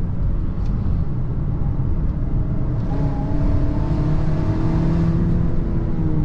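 The 2.0-litre EcoBoost turbo four-cylinder of a 2023 Ford Maverick is driving with a steady low rumble of engine and road noise. About three seconds in, the engine note climbs gently under acceleration, then eases off near the end.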